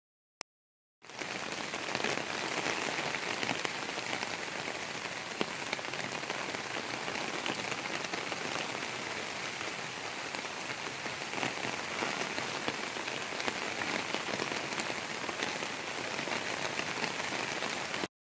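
Steady rain falling, a dense patter of many drops at an even level. It starts abruptly about a second in and cuts off suddenly just before the end.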